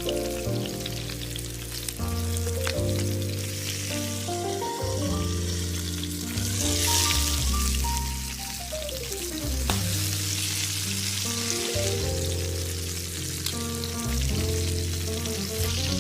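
Food sizzling in hot oil in a pan, a steady frying hiss that swells about seven seconds in, over background music with a melody.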